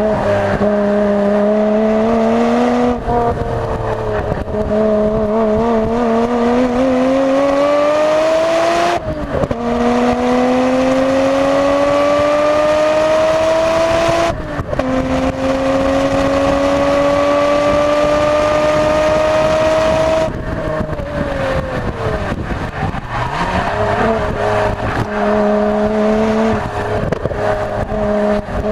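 Nissan Skyline GT-R R33 V-Spec's twin-turbo RB26DETT inline-six running under full throttle, fitted with N1 turbos. It climbs in pitch through the gears, with upshifts about 9 and 14 seconds in. About 20 seconds in it lifts off and falls in pitch, then runs at part throttle into a corner near the end.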